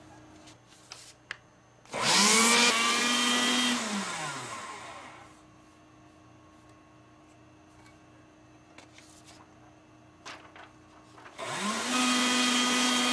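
Small electric motor, most likely a desktop paper shredder, running twice: once about two seconds in and again near the end. Each time it spins up quickly to a steady hum, runs for a second or two, then winds down with falling pitch. A few light clicks come just before each run.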